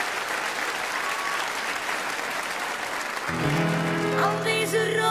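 Audience applauding. About three seconds in, music starts with sustained chords.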